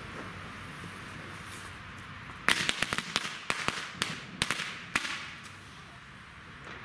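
Lit fuse of a cipolla firecracker hissing, then about two and a half seconds in a rapid string of a dozen or so sharp bangs from its double seven-banger pre-burner, over about two and a half seconds.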